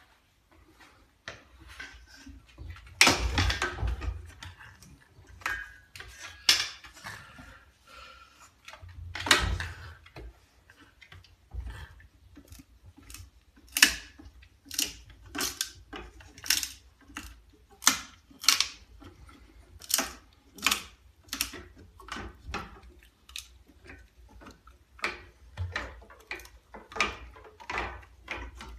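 A long bamboo stick held crosswise in a French Bulldog puppy's mouth knocking and clattering against a wooden door frame again and again as the dog tries to carry it through the doorway. The hardest knocks come about three and nine seconds in, followed by a quicker run of sharp knocks.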